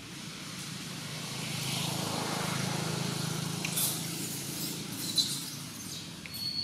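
A motor vehicle passing by: a low engine rumble that swells and then fades over a few seconds. A few sharp clicks come near the middle and later, the loudest about five seconds in.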